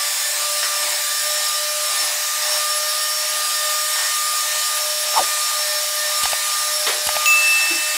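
Electrolux Ergorapido cordless stick vacuum running on its replacement lithium-ion battery pack, a steady motor whine with airy suction hiss as it sweeps up sawdust. A few sharp clicks and knocks come about five to seven seconds in.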